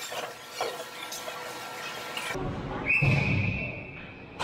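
A referee's whistle gives one steady, high blast lasting about a second and a half, starting about three seconds in, over low rink noise. Before it there is a hissy stretch with a few clicks.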